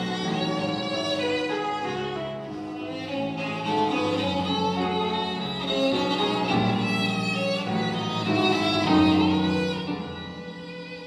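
Violin-led string music playing from the AGA 9534 radio receiver's loudspeaker. It turns quieter near the end as the set's knob is turned.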